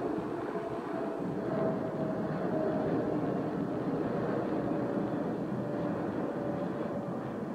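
Jet airliner passing overhead: steady engine noise with a faint whine that slowly falls in pitch.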